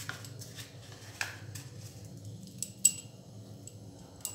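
Bangles on the wrists clinking against each other as the hands work and pat a dough mixture: a string of irregular sharp clicks with a bright ring, the loudest a little before three seconds in.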